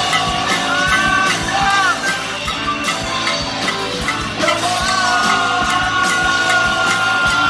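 Live polka-rock band playing a rock song: electric guitar, bass guitar, keyboard and drum kit, with several voices singing. About four and a half seconds in, a long held note comes in and holds to the end.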